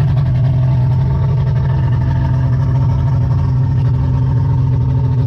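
225 hp outboard motor on an aluminium boat running at a steady speed under way: a constant, even engine drone that holds one pitch.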